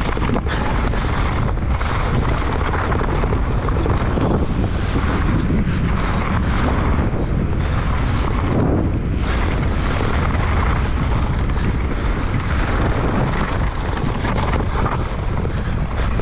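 Wind rushing over the microphone of a camera on a mountain bike descending a muddy trail at speed. Tyre noise and the bike rattling run underneath, with a few sharp knocks over bumps.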